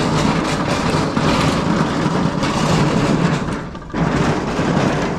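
Scrap metal clattering and scraping as it is shifted and loaded into a trailer, with a heavy rumble and a brief lull a little before four seconds in.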